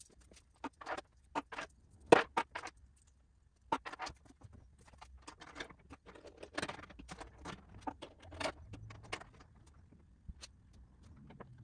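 Irregular clicks, knocks and scrapes of a hydrofoil mast being handled and fitted onto the foil mount on a board, with the loudest knock about two seconds in.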